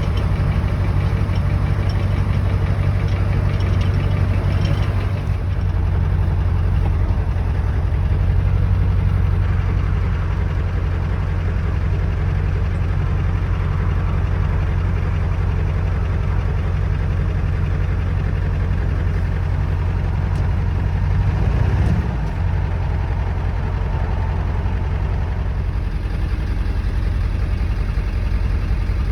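Ford 7.3 Power Stroke V8 turbo-diesel idling steadily, cold, just after a hard start, having sat for about two weeks.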